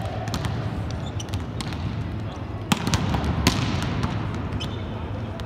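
Volleyballs being spiked and smacking the court floor during warm-up hitting, a string of sharp slaps and bounces, the two loudest about two and a half and three and a half seconds in, over the steady low rumble of a large hall.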